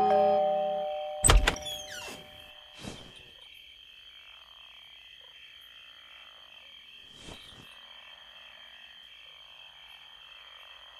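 Cartoon doorbell chime, two held tones, cut into about a second in by a loud thump, followed by two softer knocks a few seconds apart over a faint steady background.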